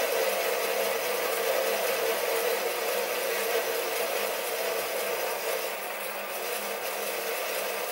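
Sieg SC3 mini lathe running steadily, its tool taking a light cut of a couple of thou off the side of a cast iron boss.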